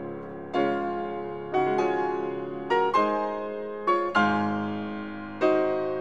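Background piano music: slow notes and chords struck about once a second, each ringing and fading before the next.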